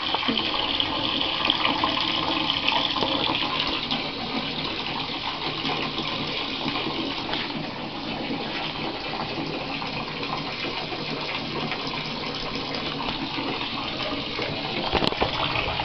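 Bathtub tap running, water pouring into a plugged tub as it fills: a steady rushing, a little louder in the first few seconds, with a short click near the end.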